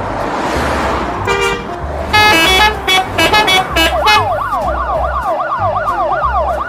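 A short vehicle horn toot, then a quick run of beeping horn tones, then an emergency siren wailing fast up and down, about four sweeps a second, over a rushing noise and a low repeating thump.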